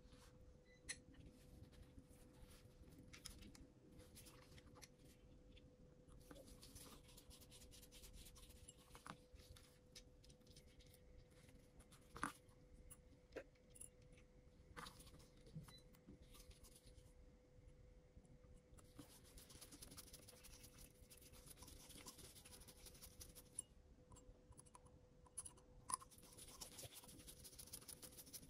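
Faint clicks and light scratching from small tools handling tiny parts, with a few sharper clicks, over a faint steady hum.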